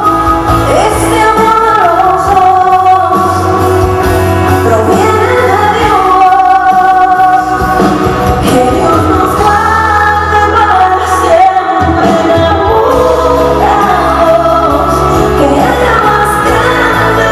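A woman singing a Spanish-language song into a microphone over amplified instrumental backing with a steady bass line.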